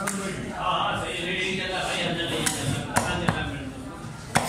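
Heavy cleaver chopping through a chunk of fish into a wooden chopping block: about five sharp knocks at uneven spacing, three of them close together in the second half.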